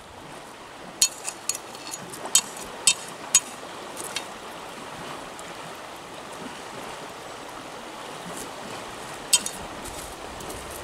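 Sharp knocks of a machete cracking small snail shells against a rock: a quick run of them in the first few seconds and one more near the end. Under them, the steady sound of flowing river water.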